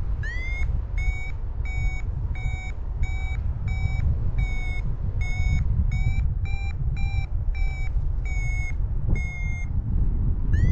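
Paragliding variometer beeping in lift: a run of short high beeps, about one and a half to two a second, their pitch creeping up slightly midway and then easing back, the beeping tone signalling that the glider is climbing. Wind rushes over the microphone underneath.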